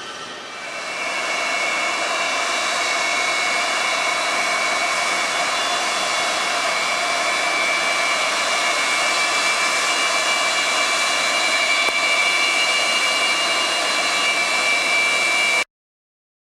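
Apache helicopter's turbine engines running with a steady high whine over a rushing noise. It grows louder about a second in, holds steady, and cuts off suddenly near the end.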